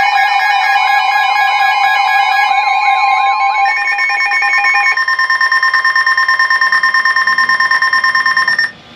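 Electronic emergency alert tones: a warbling multi-tone signal that switches about four seconds in to a steady high attention tone, which pulses rapidly in its last few seconds and then cuts off abruptly near the end.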